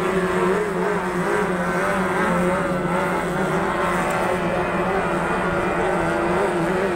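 Motorboat engine running with a steady drone, its pitch wavering slightly up and down.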